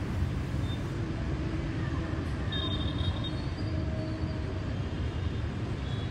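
Steady low rumble of city street traffic on wet roads, with a few faint high tones near the middle.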